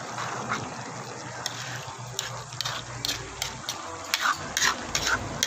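Metal ladle stirring a thick coconut-milk stew in a large aluminium wok, the liquid sloshing and the ladle scraping and clicking against the pan, more often from about halfway through. The stirring is kept up so the coconut milk does not curdle.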